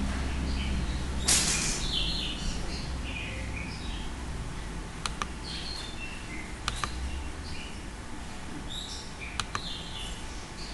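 Computer mouse clicking: single and double clicks, a pair about five seconds in, another near seven seconds and a pair near nine and a half seconds, while menus and dialog windows are opened. Scattered high chirps are heard in the background, and there is a short burst of noise about a second in, the loudest moment.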